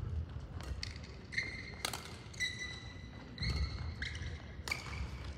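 Badminton rally: rackets strike the shuttlecock with sharp cracks, the clearest two about two seconds in and near the end. Between the hits, shoes squeak on the hall's court floor and feet land with low thuds.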